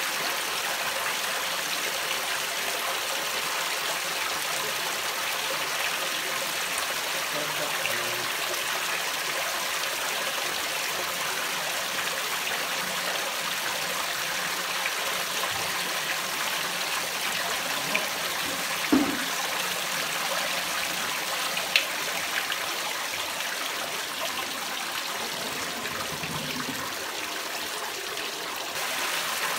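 Water pouring from a perforated inlet pipe into a homemade fleece filter and running through the fleece, a steady rushing trickle. A few light knocks come about two-thirds of the way through.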